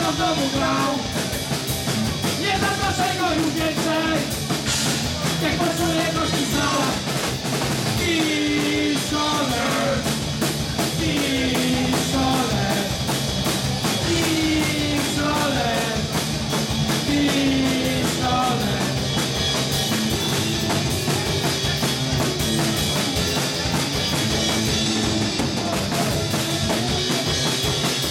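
Punk rock band playing live: drum kit, guitars and bass, loud and steady throughout. A voice sings sliding, falling lines through roughly the first two thirds, after which the band plays on without it.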